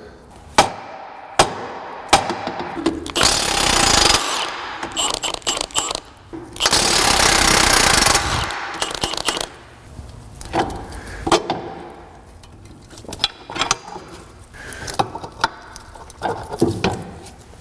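Cordless impact wrench hammering in two bursts on a tie rod end nut: a short one about three seconds in and a longer, louder one of about two seconds near the middle. Scattered metal clicks and knocks of tools come between.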